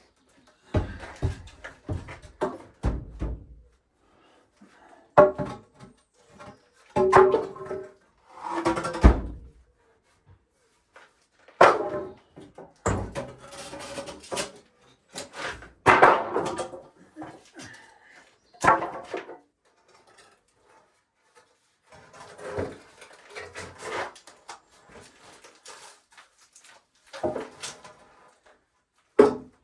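Irregular knocking and clattering of wooden pieces being handled and set down, in short bursts with brief pauses between.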